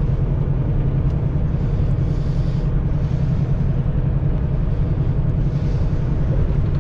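Semi truck driving at highway speed: a steady low drone of the diesel engine and road noise, holding level without change.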